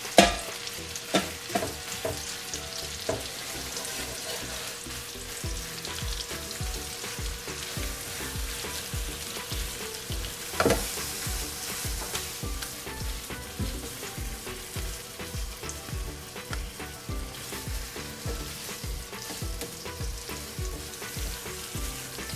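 Marinated minced-meat keema sizzling in melted butter in a nonstick frying pan as a silicone spatula stirs and spreads it, with a few sharp taps, the loudest at the very start and about ten seconds in.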